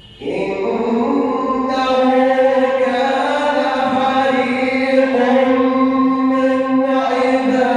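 A male Quran reciter chanting in melodic tajweed style, coming in about a quarter second in after a pause and holding long drawn-out notes that shift slowly in pitch.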